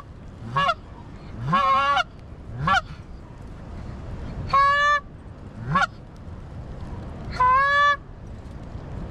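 Goose calling on a hunter's goose call: loud, drawn-out honks alternating with short clucks that break upward in pitch, a call every second or so, over steady wind noise.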